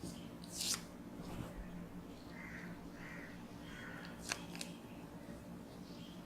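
Faint handling of a small action camera and its packaging: a few brief rustles and clicks, the sharpest a close pair about four seconds in, over a steady low hum.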